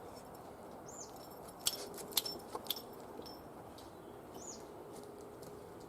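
Two short high bird chirps, about a second in and again near the end, over a steady low background hiss. Three sharp clicks come around two seconds in and are the loudest sounds.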